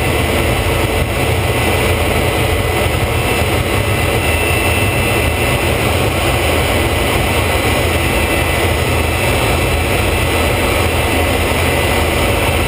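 Folland Gnat's Bristol Siddeley Orpheus turbojet running steadily, heard from inside the cockpit as the jet rolls along the runway: a loud, even rushing noise with a faint high steady whine.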